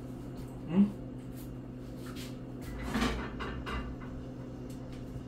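A few light knocks and clatters as a frying pan is handled on the stove, over a steady low hum. About a second in, a short, loud rising pitched sound.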